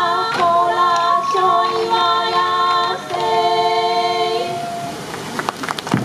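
A group of voices singing a Sansa Odori folk song in long, steady held notes that step from pitch to pitch, with the taiko drums silent; the singing fades out about four and a half seconds in. Scattered sharp taps follow near the end.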